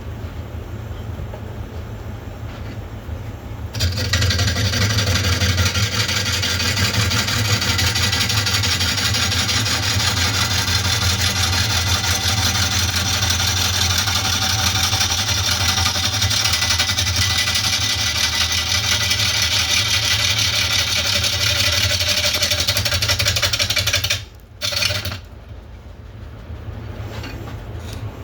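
Wood lathe motor humming as it spins a large southern yellow pine bowl blank. From about four seconds in, a turning tool cuts into the spinning wood with a loud, steady, rough cutting noise, roughing the out-of-round blank round. The cut stops about four seconds before the end, with one brief touch after, and the lathe hum then stops.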